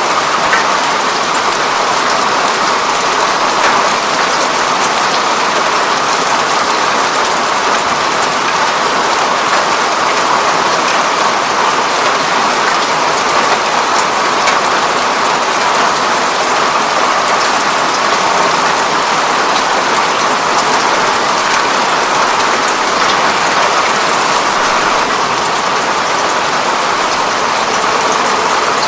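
Steady rain pattering on a window pane, an even dense hiss of drops with fine scattered ticks.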